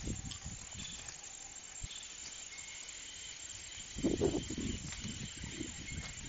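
Rural field ambience: a steady hiss with faint short high chirps, and a brief low rumble about four seconds in.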